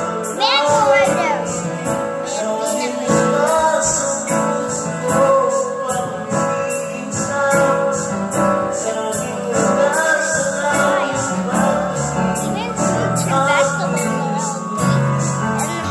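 Videoke: a song's backing track playing through the karaoke machine's speakers with a person singing along into the microphone.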